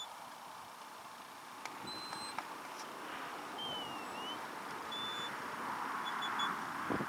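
Shepherd's whistle giving commands to a working sheepdog: a short held note, a note that falls and rises again, another held note, then three quick pips. Behind them runs a steady hiss that grows a little louder toward the end.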